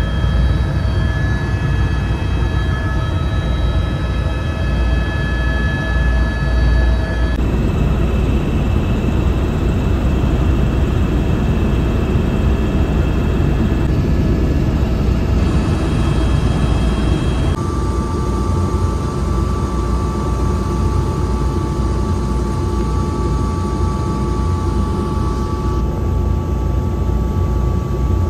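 Helicopter turbine engine and rotor running steadily, a loud low drone with a steady high whine over it, heard from inside the cabin in flight. The whine jumps abruptly in pitch a few times.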